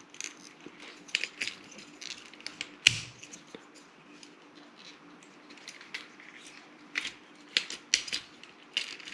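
Hard plastic parts of a Transformers action figure clicking and knocking as it is twisted and folded through its tank-to-robot transformation, with a sharper snap about three seconds in.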